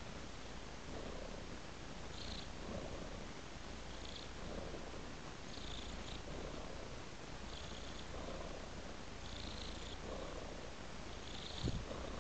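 Domestic tabby-and-white cat purring steadily, a relaxed, contented purr that swells and fades with each breath, about every two seconds. A brief soft knock near the end.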